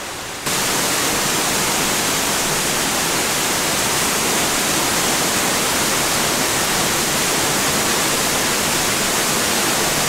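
Kaminari Falls' waterfall heard from right behind its falling curtain of water: a loud, steady, dense rush that cuts in suddenly about half a second in.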